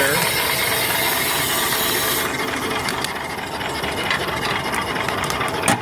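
Small steam engine running on its boiler, with a strong hiss of air from the boiler's blower that drops away sharply about two seconds in. A single sharp click near the end.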